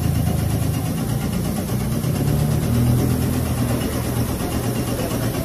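A vehicle engine idling steadily, a low, even running sound.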